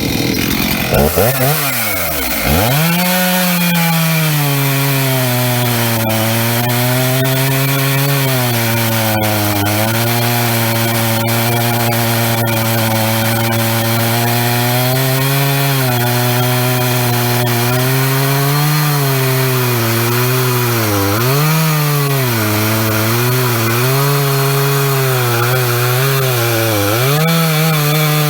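Stihl MS391 chainsaw revving up about two seconds in and cutting into a large burl log. The engine holds at high revs, its pitch dipping over and over as the chain bites and loads it, with the dips coming more often near the end.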